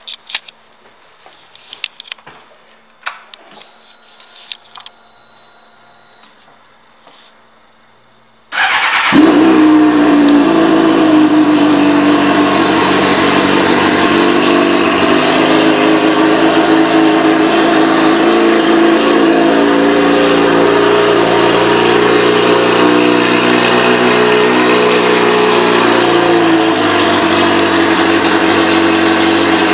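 A few faint clicks, then about eight and a half seconds in, the 2007 Suzuki GSX-R600's inline-four engine starts abruptly and runs at a steady idle. Its note shifts slightly lower near the end.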